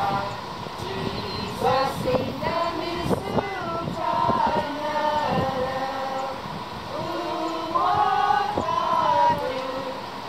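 A group of Comanche elders singing a song together, with long held notes that slide up and down between pitches.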